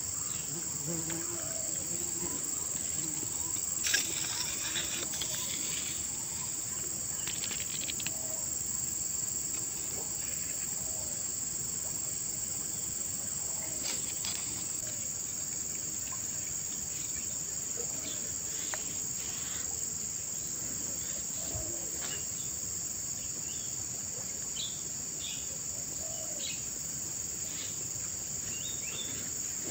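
Steady chorus of insects, a continuous high-pitched trill, with a few faint clicks and rustles; the clearest click comes about four seconds in.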